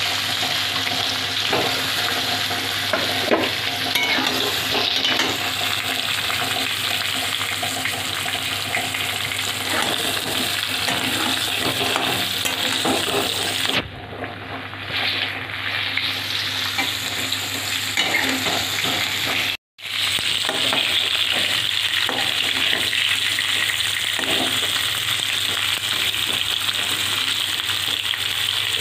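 Steamed cauliflower florets sizzling as they fry in hot refined vegetable oil in a steel kadai, with a metal spatula scraping and turning them now and then. The sizzle dips briefly about halfway through and cuts out for an instant a little later.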